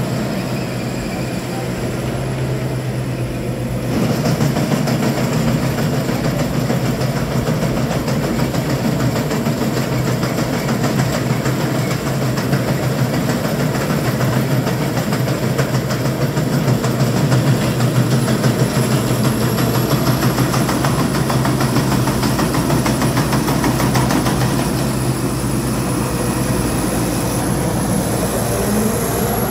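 Rice combine harvester running steadily as it cuts and threshes the crop, a continuous engine drone. It steps up in loudness about four seconds in and is loudest through the middle as the machine draws close.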